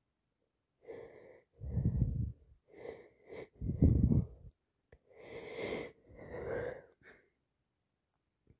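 A person with a heavy head cold building up to a sneeze and sneezing: about six separate bursts of breath over some six seconds, the loudest about four seconds in.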